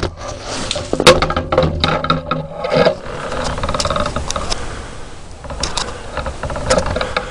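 Irregular clattering, knocking and rattling of things being handled, with close camera handling noise.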